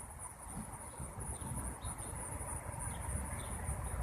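Outdoor insect chorus: a steady, high-pitched, finely pulsing trill from insects such as crickets, over a low background noise.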